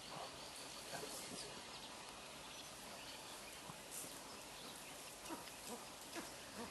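Faint outdoor ambience: a steady hiss with scattered soft clicks and small chirps.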